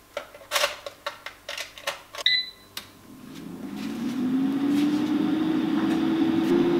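Clicks and knocks as an IKOHS air fryer's basket is loaded and slid shut, with a short electronic beep a little after two seconds. About three seconds in, the air fryer's fan starts up, its hum rising in pitch and then running steadily.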